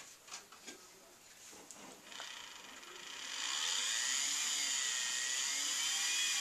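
A few faint clicks, then the small electric motor of an HO scale model diesel locomotive spins up into a high, wavering whine as the throttle is turned up, holding steady from about three and a half seconds in. The locomotive stays standing: the motor runs free because its drive shaft to the wheels is broken in two.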